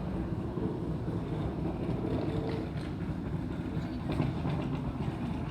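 Airport terminal ambience: a steady low rumble of machinery and background activity, with a faint hum and a few light clicks and knocks.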